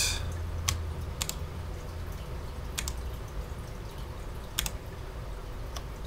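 Key presses on a Cherry MX 10.0N keyboard with low-profile MX Speed switches: about six separate clicks spread over a few seconds, some in quick pairs, not continuous typing.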